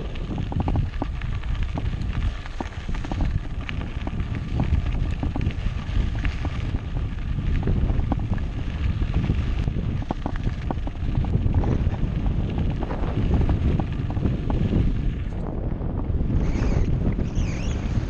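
Wind buffeting a helmet- or bike-mounted action camera's microphone as a mountain bike rides downhill, with a steady rumble and many small clicks and knocks from the bike rattling over a rough track. A few brief high squeals near the end.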